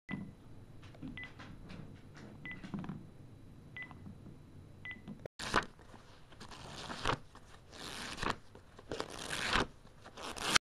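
Short high electronic beeps, about one every second, over faint clicking. About halfway through they give way to a series of loud hissing bursts, each lasting under a second.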